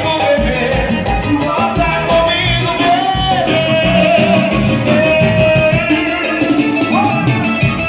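Loud Brazilian dance music with a steady pulsing bass beat and a gliding lead melody, possibly with a voice.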